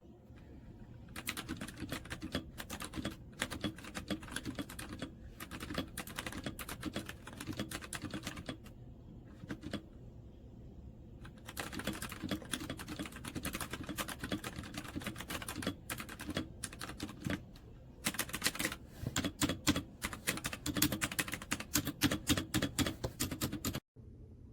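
Typing on a Redragon K556 mechanical keyboard with brown switches: runs of rapid key clacks with short pauses between them, stopping abruptly near the end.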